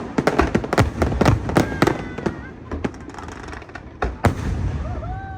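Aerial fireworks shells bursting: a quick volley of sharp bangs and crackles at first, thinning to scattered single bursts, with one strong bang about four seconds in.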